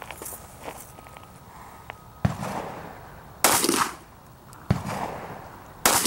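Handgun shots: four loud, sharp reports at an even pace, each about a second apart, with a short ring after each.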